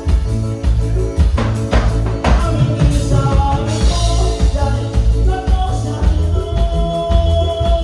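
Live band music with a steady driving bass beat and sustained keyboard-like melody lines.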